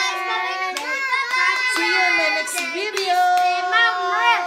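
Children singing together with a woman's voice among them, a lively sung chant. One note is held for over a second near the end.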